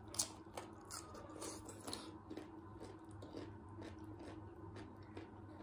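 Close-up bite into a crisp cucumber slice with a sharp crunch just after the start, followed by steady crunchy chewing, about three chews a second.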